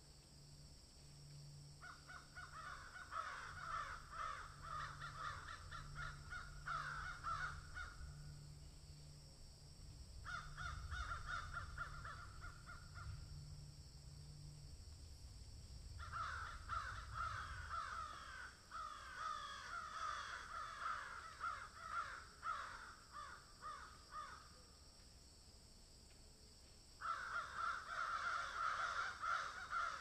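Faint bursts of harsh, rapidly repeated crow-like calls in four runs of a few seconds each, the last starting suddenly near the end, over a low steady hum in the first half.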